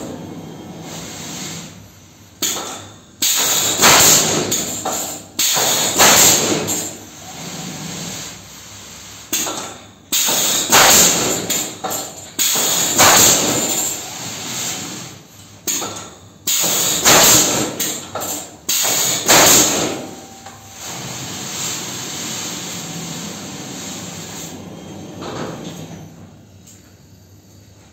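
Pneumatic coil nailers on a Forest PT 4000 pallet nailing machine fire nails into pallet boards as loud, sharp bangs, singly and in quick pairs every second or two. About twenty seconds in the bangs stop and a steadier mechanical running noise carries on.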